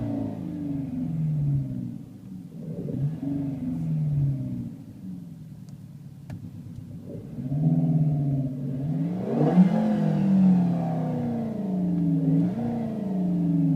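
Renault Clio 200 Turbo's R-Sound Effect engine sound, played through the car's cabin speakers. It revs up and falls back several times as if shifting through gears, eases off to a lull midway, then climbs hard again.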